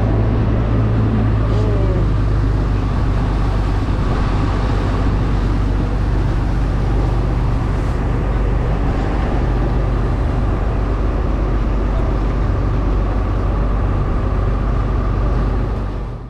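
Boat engine running at a steady speed, a loud low hum over wind and water noise, fading out sharply at the very end.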